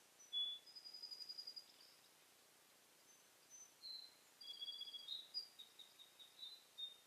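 Small songbirds singing and calling: a rapid high trill in the first couple of seconds, then a string of short, thin whistled notes in the second half.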